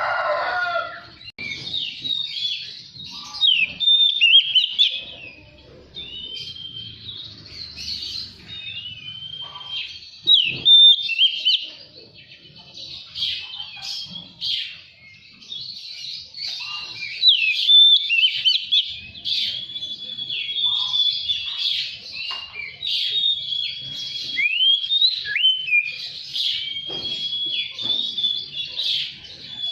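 Oriental magpie-robin (kacer) singing a long, varied song of quick whistled notes, slurs and chattering phrases with only brief pauses.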